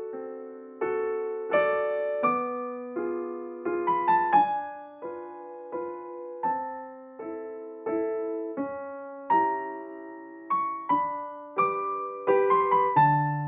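Background music: gentle, slow solo piano melody with notes struck one or two at a time and left to ring and fade.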